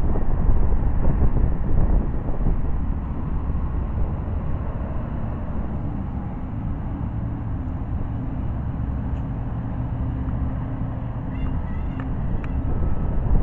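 Low, steady rumble of a distant tanker truck's diesel engine and road traffic, with wind buffeting the microphone, strongest in the first few seconds. A few faint high squeaks near the end.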